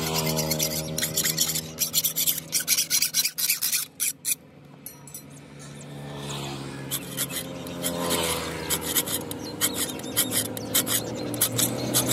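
Steel tool rasping back and forth across the edge of a sickle blade in quick strokes, about four a second, pausing about four seconds in and starting again around seven seconds.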